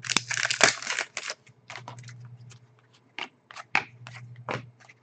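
The foil wrapper of a trading-card pack crinkling in the hands for about the first second. After that come scattered short clicks and slides as the cards are handled and sorted against each other and the tabletop, over a faint low hum.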